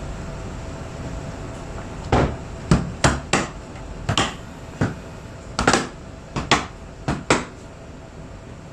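Hard drone parts knocking and clacking as they are handled and taken out: about a dozen sharp knocks, starting about two seconds in and ending a little before the end.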